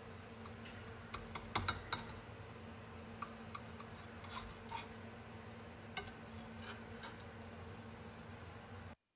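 Scattered light clicks and taps over a steady low hum, with a small cluster of clicks about one and a half to two seconds in and another click about six seconds in.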